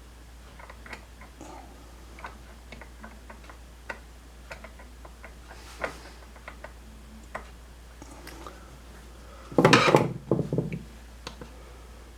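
Scattered small clicks and taps of test equipment being handled and set, with one louder clatter about ten seconds in.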